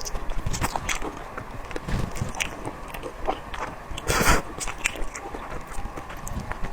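Close-miked biting and chewing of spicy boneless chicken feet: a run of quick wet clicks and crunches. A louder burst of noise, lasting under half a second, comes about four seconds in.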